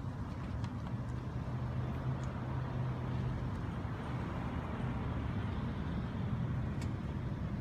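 Steady low rumble of a motor vehicle engine running, with a low hum holding for a couple of seconds from about a second in.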